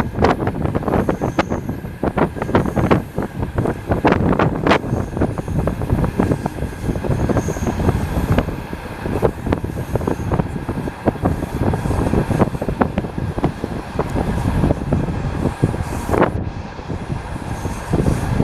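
Passenger railway carriage running along the track: a steady rumble with the clatter of the wheels over rail joints, many sharp irregular knocks.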